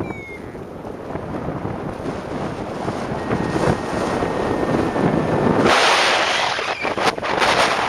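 Wind buffeting the microphone: a steady rushing noise with heavy low rumble, growing louder and brighter about six seconds in.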